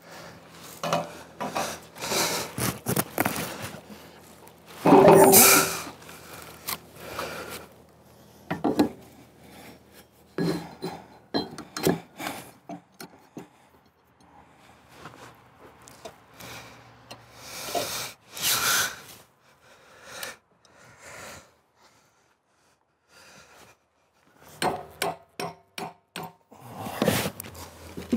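Heavy cedar log being shifted on a wooden mill bed: irregular wood-on-wood knocks and scrapes with some metal clanks, the loudest thump about five seconds in, and a quick run of knocks near the end as the log is secured.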